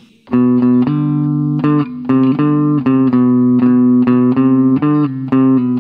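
Gibson Les Paul electric guitar in a clean tone, picking a melody of about a dozen single notes. It is the song's vocal line moved up a third within G major, starting on B: the harmony part for a backing chorus.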